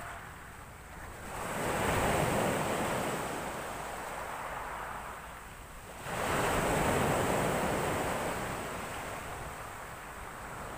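Sea waves breaking on the shore: two surges of surf, one building about a second and a half in and another about six seconds in, each washing out slowly.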